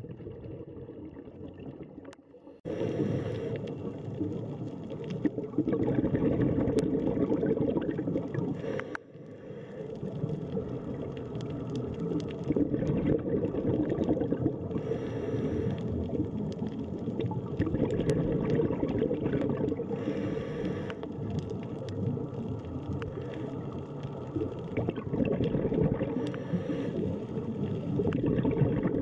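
Underwater ambience: a steady low rush of water and bubbling with scattered faint clicks, brightening into a brief hiss every five seconds or so. It jumps louder about three seconds in and dips briefly near nine seconds.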